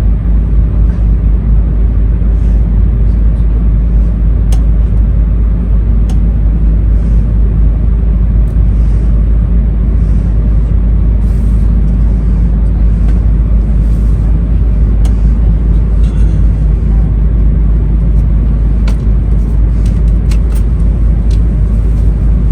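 Interior running noise of an E2 series 1000 Shinkansen car: a steady, loud low rumble of the train running on the rails, with a few faint clicks scattered through it.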